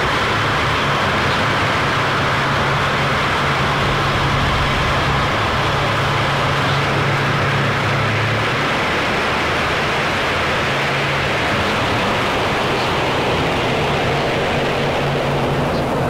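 Noise music: a loud, unbroken wall of distorted static, with a low steady drone underneath that fades back about halfway through.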